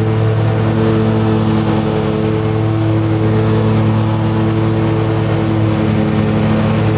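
Engine of a ride-on machine running steadily at a constant speed, its low hum holding even throughout.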